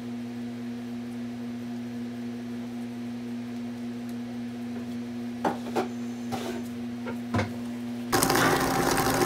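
Steady low electrical hum with a few light clicks as macaron shells are set down on a baking tray. About eight seconds in, a stand mixer starts beating buttercream in a steel bowl, much louder, a dense whirring churn.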